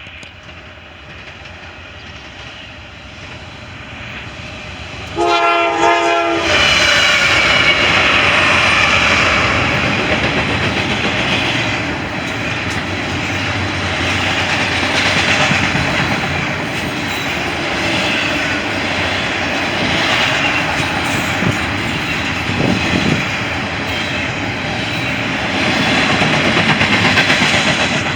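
A train led by a rebuilt GE Dash 9 diesel locomotive approaches and sounds one short multi-note horn blast about five seconds in, then passes close by: a loud, continuous rumble of the locomotive and cars with wheels clacking over the rail joints.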